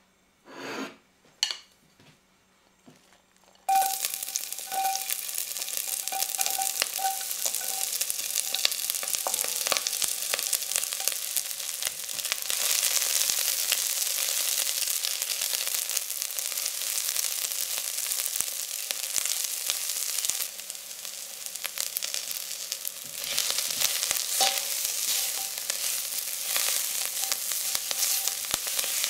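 Chopped shallots and garlic frying in hot olive oil in an enamelled cast-iron pot: after two short knocks, the sizzle starts suddenly a few seconds in and goes on as a dense crackling hiss, with a silicone spatula stirring through it.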